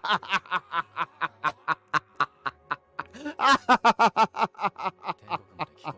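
A person laughing in a long run of quick, rhythmic 'ha' pulses, about five a second, growing louder about halfway through.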